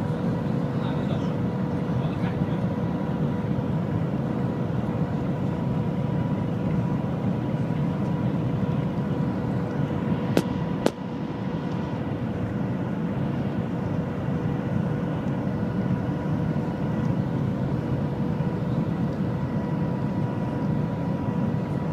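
Shanghai Maglev train running at speed, heard from inside the cabin: a steady low rushing noise with a constant hum over it. Two sharp clicks come close together about halfway through.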